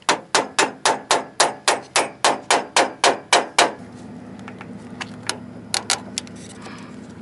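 A rapid run of about fourteen sharp metal taps, roughly four a second, as a tool strikes at the mast's access plate to work it loose. The taps stop a little past halfway, leaving a steady low hum with a few light clicks.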